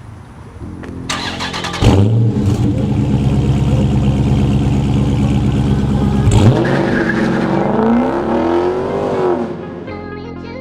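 Car engine starting up about two seconds in and idling steadily, then revved once, rising and falling in pitch, before the sound fades out.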